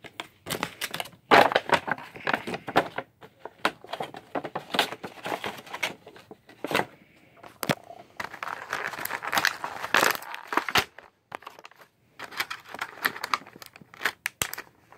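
Toy packaging being handled and opened by hand: a clear plastic bag and a cardboard box crinkling and crackling in irregular bursts, with small clicks, and a short pause about three-quarters of the way through.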